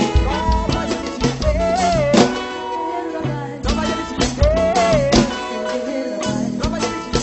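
A band playing with drums, guitar and a singing voice: steady music with a regular beat.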